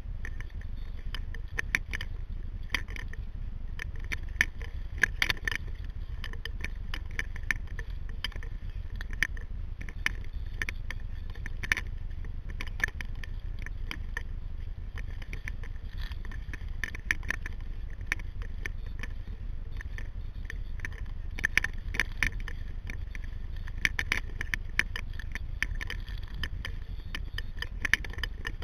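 Water splashing and dripping from a sea kayak's paddle strokes, in irregular clusters about once a second, over a steady low rumble of wind or water against the hull.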